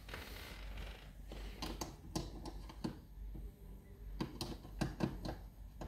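Wires and connectors being handled and hooked up: irregular small clicks and taps with some rustling, starting about a second and a half in.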